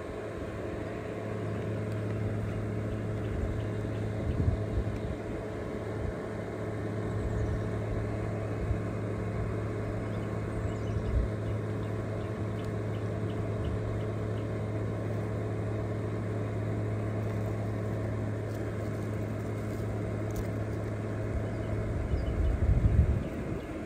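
Steady low mechanical hum that stops near the end, with a few light knocks from small parts being handled.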